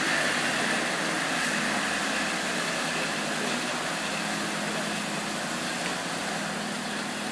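A passenger excursion boat passing close by: a steady engine hum under the rush of water from its wake, slowly fading as the boat moves away.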